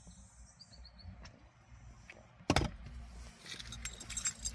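A single sharp thump about two and a half seconds in, then a set of keys jangling and clinking from about a second later.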